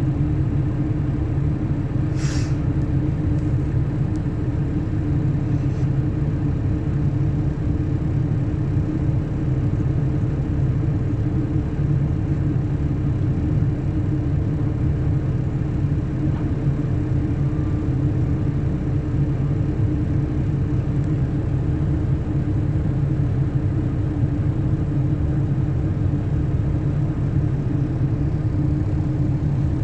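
Zoomlion excavator's diesel engine running steadily at a constant pitch, with one short click about two seconds in.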